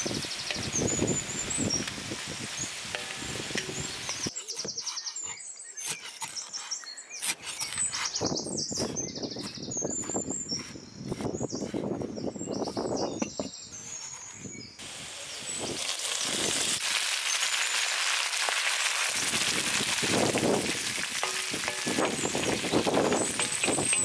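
Potato cubes frying in oil on a black pan, stirred with a wooden spoon, with birds chirping. A kitchen knife then chops dill on a wooden board in a run of sharp, uneven chops. From about fifteen seconds in, a steady, louder sizzle follows as the dill fries with the potatoes in the hot oil.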